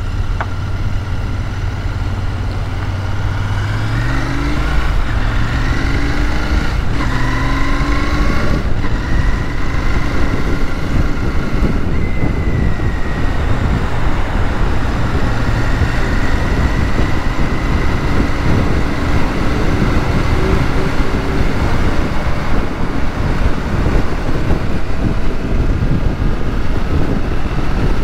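Motorcycle engine running at low revs, then accelerating through several gear changes about four seconds in, the pitch climbing and dropping with each shift. After that the engine is largely covered by a steady rush of wind and road noise at speed.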